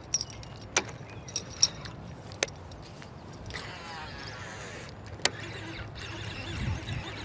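Sharp knocks and clinks of gear and paddle against a kayak, a handful of separate strikes, with a short swish about halfway through, over a steady low rumble of wind.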